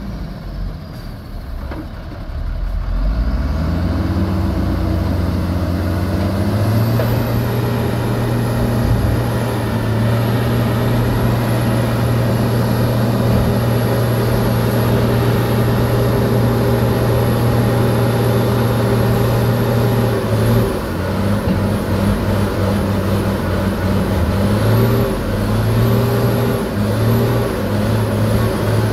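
Dump truck's diesel engine revving up a few seconds in and held at high revs to drive the tipper's hydraulic hoist as the loaded bed is raised. A thin high whine sits over it for much of the time. Over the last third the revs rise and fall unevenly.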